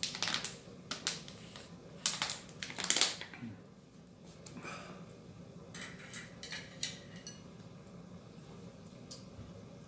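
Thin plastic water bottle crackling and crinkling as it is drunk from and handled: a dense run of sharp crackles over the first three seconds, loudest about three seconds in, then a few lighter clicks and taps around six to seven seconds in.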